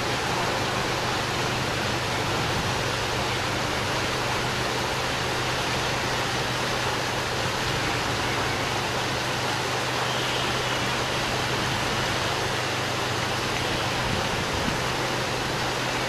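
Steady rushing of flowing river water, with a faint steady low hum underneath.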